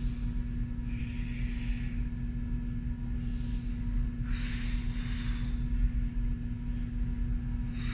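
Steady low mechanical hum in the room, with a few short, heavy breaths from a person exercising, one about a second in, one around three seconds and a longer one around four and a half seconds.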